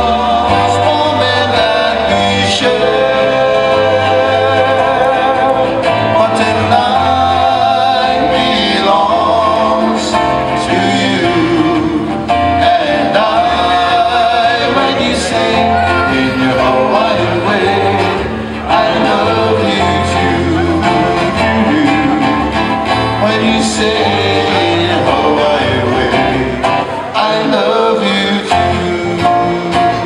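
Live band singing to acoustic guitar, ukulele and electric bass guitar, played through a PA speaker. A steady bass pulse runs under the sung melody and strummed strings.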